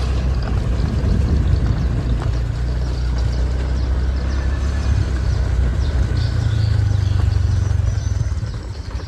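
A motor vehicle's engine running steadily as a low rumble, dropping away near the end.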